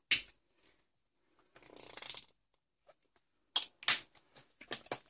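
Hands handling a plastic acrylic paint tube on a craft table. There is a sharp click at the start, a short rustle about two seconds in, then a few quick clicks and taps near the end.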